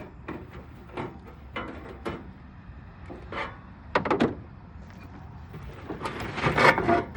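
Knocks and a sliding, rattling clatter of the sheet-metal cabinet of an old Carrier window air conditioner being handled and opened up. There is a sharp bang about four seconds in, and the loudest clatter comes near the end.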